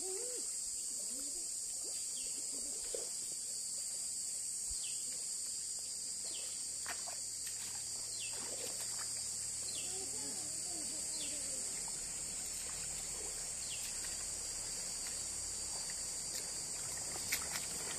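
A steady, high-pitched drone of insects, with a bird giving short falling calls several times and faint voices in the background. Near the end come a few splashes from feet wading in shallow water.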